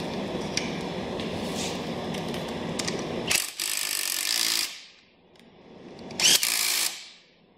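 Cordless power driver running in bolts on a power-seat frame in two short runs. The first lasts about a second and winds down; the second is shorter and louder, near the end. Before them, a steady rushing noise cuts off about three seconds in.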